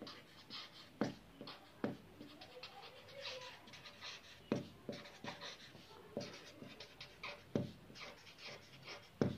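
Marker pen writing on paper: faint, uneven scratches of the tip across the sheet, with sharper taps as strokes start and end.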